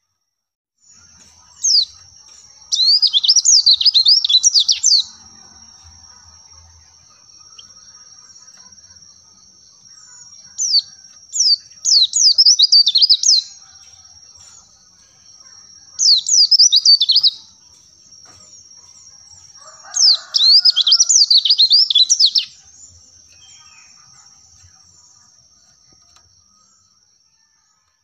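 White-eye (pleci) song: four bouts of rapid, high-pitched twittering chirps, each one to three seconds long, a few seconds apart. A faint, steady, thin high tone runs beneath them.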